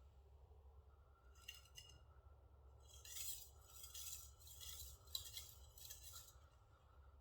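Japanese gyuto knife blade stroked over a wet finishing whetstone: quiet hissing scrapes, one or two about a second in, then about five back-and-forth strokes in quick succession, the final edge-honing strokes.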